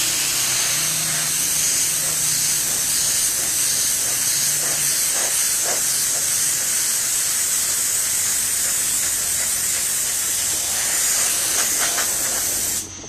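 Spray gun hissing steadily as it sprays chemical solution onto a fuel tank during hydro spray chrome plating, cutting off near the end.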